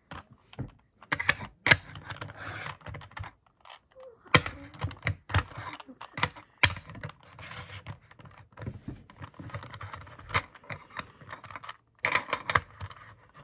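Plastic Rubik's Cube being turned by hand: quick, irregular runs of clicks and scraping as the layers rotate, with a few sharper clacks.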